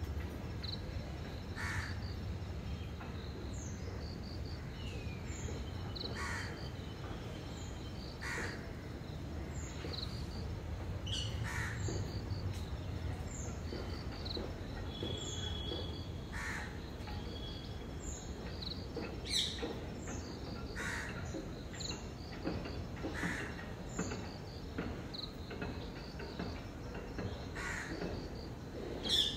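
Crows cawing repeatedly, one short call every one to three seconds, over a low steady background rumble.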